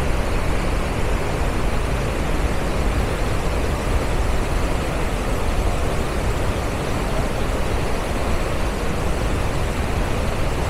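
Swollen Ruiru River rushing in flood, its muddy water pouring over rocks in a steady, even roar.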